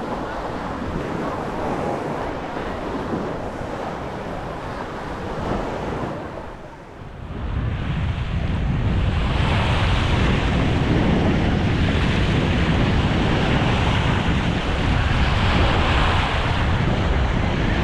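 Sea surf washing on a beach, with wind buffeting the microphone. Just past the middle the sound briefly drops, then the wind rumble comes back stronger and steadier.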